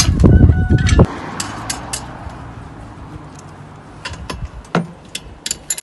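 Clicks, knocks and light clatter of the steel pull handle and hitch bracket being fitted to a Gorilla Carts poly dump cart's frame. A loud low rumble of handling fills the first second and cuts off suddenly, and sharp metallic clicks follow at intervals near the end.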